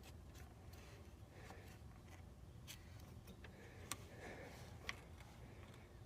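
Near silence with a faint low hum and a few small clicks, the two loudest about a second apart near the middle.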